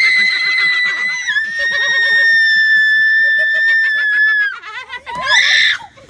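A young woman screaming in fright: one long, high-pitched held scream lasting about four and a half seconds, then a second, shorter scream near the end.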